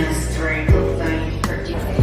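Background music with a steady beat: a low kick drum about every 0.7 s under held pitched notes.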